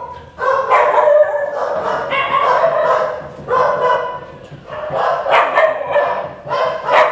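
Many dogs barking and yelping at once in a crowded dog shelter, a loud, continuous, overlapping chorus.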